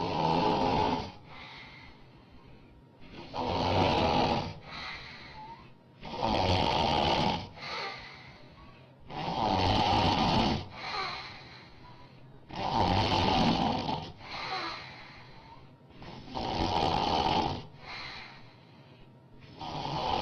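A woman snoring loudly in a steady rhythm: a loud snore about every three seconds, seven in all, each followed by a shorter, softer breath.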